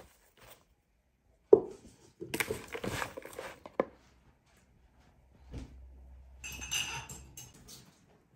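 A metal spoon mixing shredded raw potato and onion with flour and spices in a plastic bowl: a sharp knock about a second and a half in, then two spells of crunchy scraping and rustling with a clink in between.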